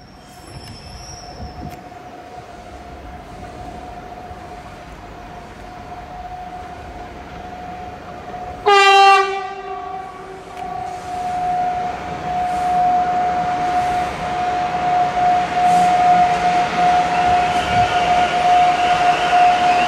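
PKP InterCity EU44 Husarz electric locomotive approaching and passing with its passenger coaches, a steady high whine running throughout. About halfway through it sounds one horn blast of about a second and a half, the loudest sound, then the train noise grows louder as it passes close.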